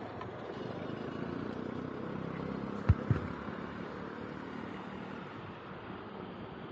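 Quiet city street ambience: a steady hum of traffic, with two short low thumps close together about three seconds in.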